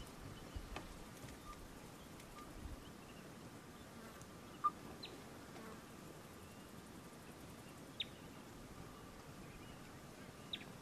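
Faint steady buzz of insects, with a brief chirp near the middle and three short, downward-falling bird whistles a few seconds apart.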